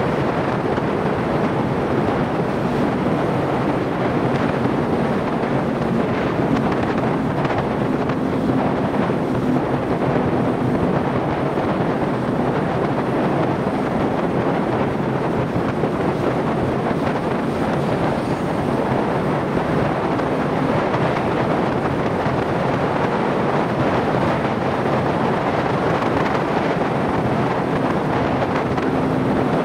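Steady wind rush on the microphone of a motorcycle riding at road speed, with a faint engine hum underneath that comes and goes.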